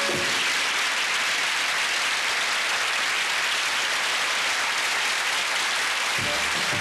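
Audience applauding steadily as the band's brass music cuts off at the start. About six seconds in, the band starts playing again with low notes under the applause.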